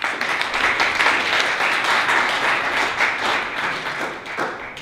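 Audience applauding, starting all at once and dying away near the end.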